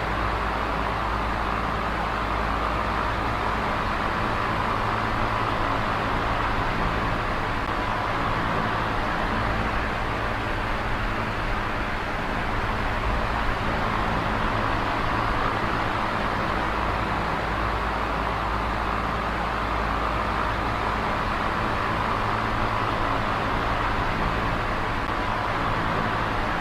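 Small electric oscillating fan running steadily: an even rush of air over a low motor hum, the airy part swelling and fading slowly as the fan head turns.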